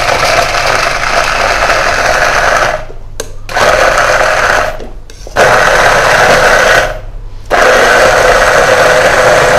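Stick (immersion) hand blender running in a plastic beaker, puréeing boiled lemon pieces with their peel. It runs in four stretches of one and a half to three seconds, each with a short stop between.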